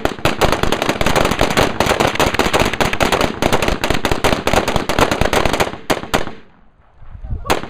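Several guns firing at once in a rapid, overlapping volley of shots, which stops about six seconds in; one more shot follows near the end.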